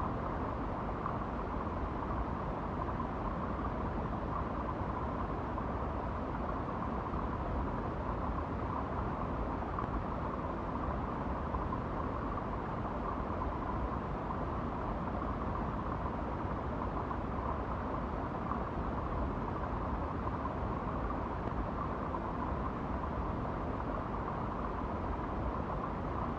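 A steady, unbroken rumbling noise drone, heaviest in the bass with a faint hum above it.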